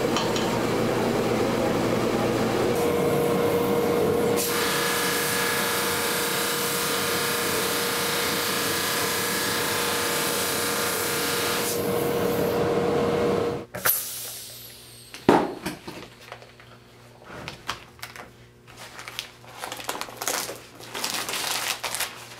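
Woodworking machines running steadily, a band saw resawing walnut veneer and then a conveyor-fed drum sander sanding it; the sound changes a few seconds in and cuts off abruptly about 14 seconds in. After that, soft rustling of plastic vacuum-bag sheeting and light knocks as the veneer pieces are handled.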